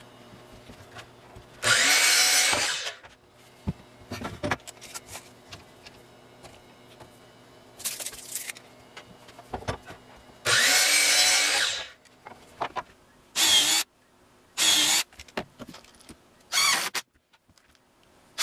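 Power drill running in short bursts, its motor whine rising as each burst starts: two longer runs of about a second and a half, and four shorter ones, with small knocks between them.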